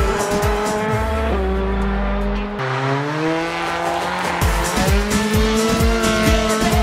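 Background electronic music with a steady kick-drum beat and held synth notes. The beat drops out for about a second in the first half, then returns.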